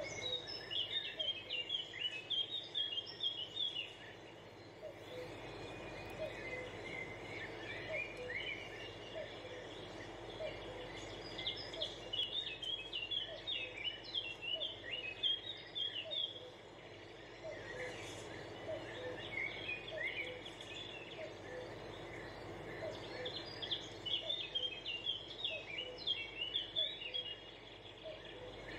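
Small birds chirping in quick twittering bursts over a steady background hiss, the bursts returning about every ten seconds. A faint, regular pip sounds about once a second beneath them.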